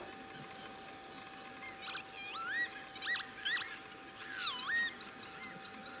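Geese calling from a flock: a run of short, high-pitched calls that swoop up and down, starting about two seconds in and ending just before five seconds, over a faint steady hum.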